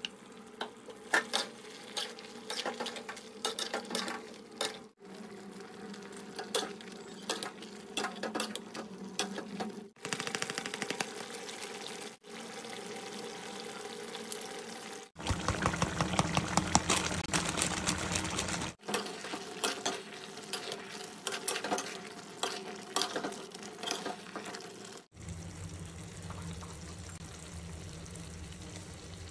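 Metal spatula stirring chicken and spices in a steel pot, with repeated clinks and scrapes against the pot, in several short clips cut together. About halfway through there is a louder, noisier stretch of a few seconds.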